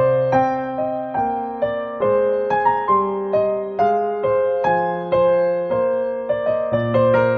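Background music: a gentle keyboard melody, notes struck about two a second over lower held notes, each fading after it is struck.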